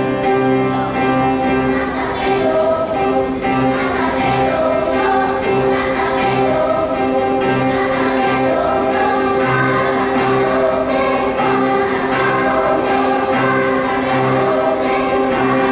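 Children's choir singing a praise song in parts, backed by instrumental accompaniment with a repeating bass note pattern.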